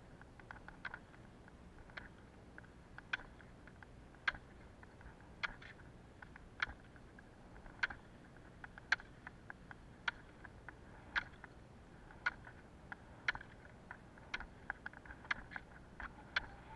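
Ski-pole tips striking asphalt during roller-ski training: a sharp click about once a second with fainter clicks in between, over a faint steady rolling noise.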